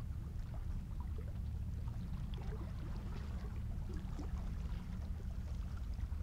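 Steady low rumble of wind and sea washing against a rocky shoreline, with faint scattered ticks and small splashes of water among the rocks.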